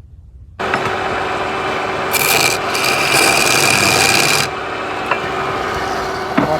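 A turning tool scraping wood spinning on a lathe. It starts suddenly about half a second in and turns louder and hissier from about two seconds in until about four and a half seconds.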